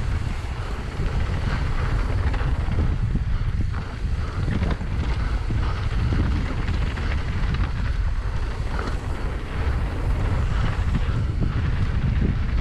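Wind buffeting the microphone over the steady rumble and rattle of a downhill mountain bike running down a dirt jump trail, with a few sharper knocks along the way.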